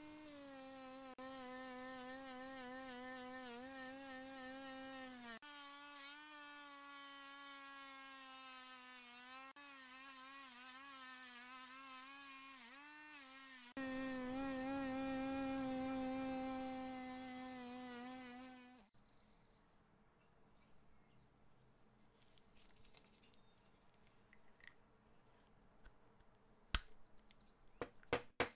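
A small electric power tool's motor running with a steady whine, its pitch sagging and wavering as it is worked under load. It cuts out after about nineteen seconds, leaving faint handling clicks and one sharp click near the end.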